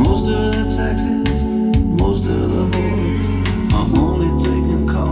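A recorded song played back from a Sony TC-R7-2 reel-to-reel tape deck through Pioneer S-933 speakers: an instrumental passage of sustained organ chords, guitar and regular drum hits.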